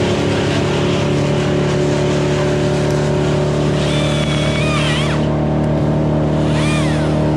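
A motor engine running at a steady, unchanging speed, with two short high wavering squeaks over it about four and seven seconds in.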